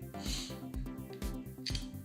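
Electronic background music with a steady, quick beat.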